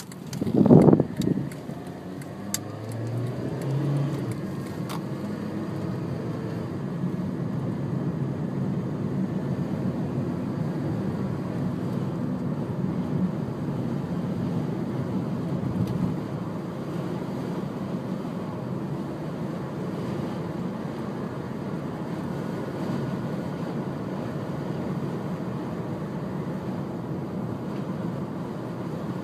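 A car driving, heard from inside the cabin as a steady low rumble of engine, tyres and road. About a second in there is a brief loud thump.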